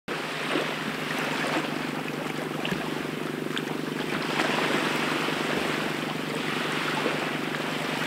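Seashore ambience: waves washing and wind, over a steady low hum.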